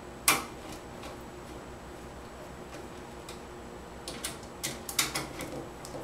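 Screwdriver tightening the power supply's mounting screws into a steel PC case: a sharp click about a quarter second in, a few faint ticks, then a cluster of light metal clicks near the end.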